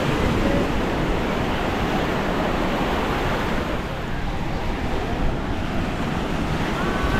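Small sea waves washing steadily onto the beach, with wind buffeting the microphone.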